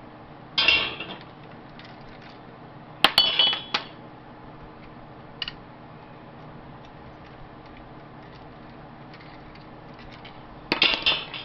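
Small metal lamp parts clinking and clattering as they are handled, in three short bursts with a single small click between.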